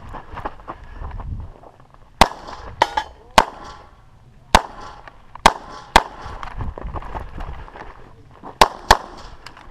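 Pistol shots during an IDPA stage: about seven sharp shots, spaced irregularly, with two quick pairs, one near the middle and one near the end.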